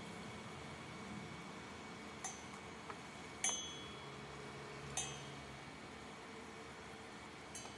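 Chopsticks clinking against a stainless steel pot and plate while lifting fried potato sticks out of the oil: a few sharp, ringing clinks, the loudest about three and a half seconds in, over a faint steady hiss.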